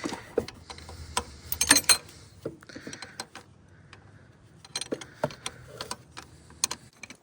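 Irregular metallic clicks and clinks from hand tools and hose fittings being worked on a tractor's power steering lines, loudest in a quick cluster just under two seconds in.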